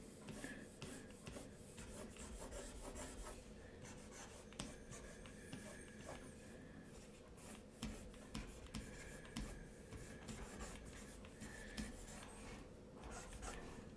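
Faint scratching and tapping of a stylus on a drawing tablet, in short scattered strokes as lines are redrawn and cleaned up.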